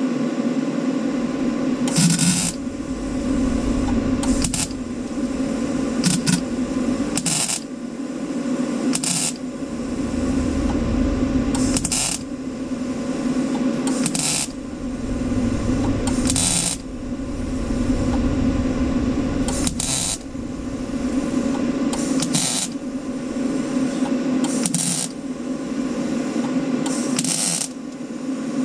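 A welder laying a series of short tacks on thin sheet-metal body panel, about a dozen brief crackles each under half a second, roughly every two seconds, over a steady hum. Small tacks are placed one beside the next to avoid blowing through the thin metal.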